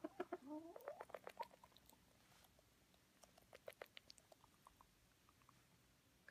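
Elderly Silkie rooster drinking from a small hand-held cup, faint. At first there are soft squeaky rising vocal sounds mixed with little clicks. Then, about three to four and a half seconds in, a quick run of light clicks and taps as his beak dips into the cup.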